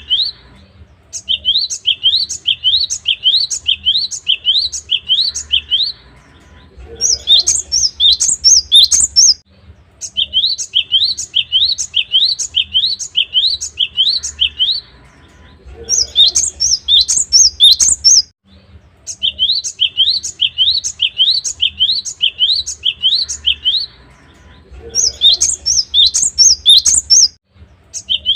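Cinereous tit (gelatik batu) singing: a run of sharp, repeated whistled notes at about two a second, then a quicker, higher, jumbled burst, then a short pause. The phrase repeats about every nine seconds, three times over.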